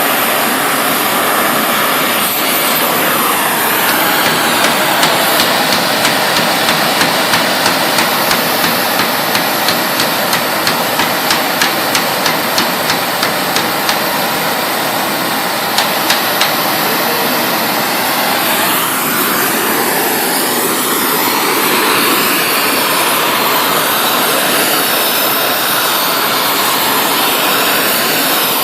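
A #10 rosebud oxy-acetylene heating torch burning with a steady loud rushing hiss, while a hammer strikes the heated 3/16-inch steel about twice a second from about four seconds in to about fourteen seconds, with two more blows a couple of seconds later.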